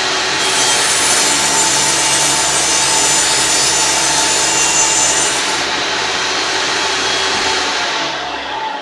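Electric power saw cutting through a wooden board: the motor runs at speed with a steady whine, the blade bites into the wood for about five seconds, and the saw winds down near the end.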